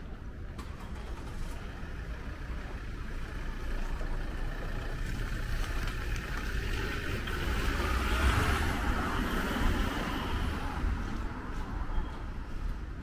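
A car passing on the street, its tyre and engine noise growing to a peak about eight seconds in and then fading.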